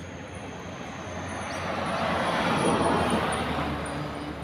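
A car drives past on the road. Its tyre and engine noise swells to a peak about two and a half seconds in, then fades away.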